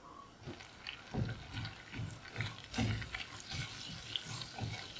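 Garlic and ground spices frying in butter in a saucepan, with a wooden spoon stirring and scraping them around the pan about twice a second over a faint sizzle.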